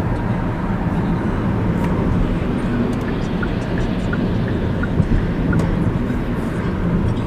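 Steady road and engine noise of a car driving, a continuous low hum with a few faint small ticks.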